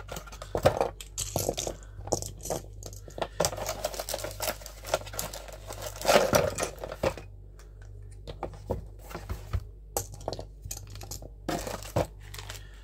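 Plastic action-camera mounts and clamps being unpacked and set down on a tabletop: irregular clicks and clacks mixed with rustling of packaging, loudest at about half a second and six seconds in.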